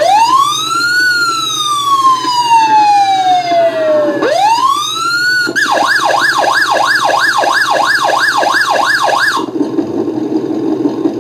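Electronic siren from the sound module of a 1/12 Kyosho DF300 RC model. A wail rises, falls slowly and rises again, then switches to a fast yelp of about three to four cycles a second that cuts off about nine seconds in. The module's simulated engine runs steadily underneath and after.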